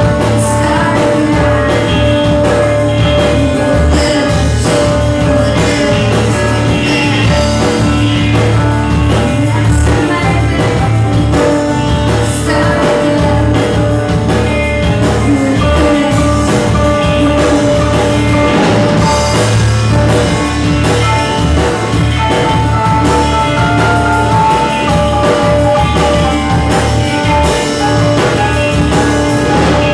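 Live rock band playing a song: electric guitar, bass guitar and drum kit, with singing.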